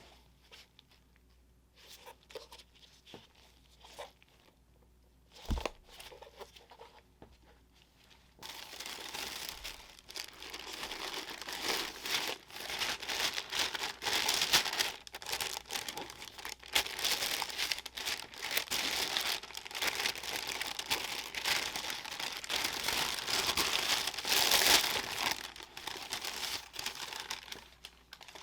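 Paper being unwrapped and crumpled: a few light handling taps and a single thump, then from about eight seconds in a dense, continuous crackling and tearing that runs until just before the end.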